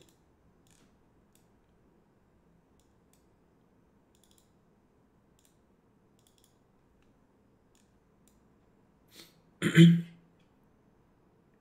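A few faint, scattered computer mouse clicks. Near the end comes a short, loud burst of a man's voice.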